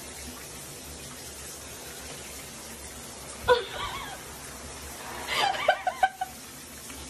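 Shower spray running steadily into a bathtub, with a person laughing briefly about halfway through and again in a run of short bursts a couple of seconds later.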